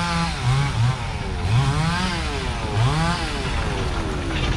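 An engine revving up and falling back several times in quick succession, then running lower and steadier.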